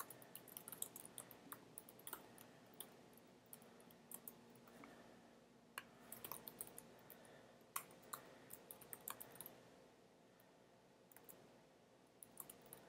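Faint computer keyboard typing: irregular light clicks of keys being struck as text is entered.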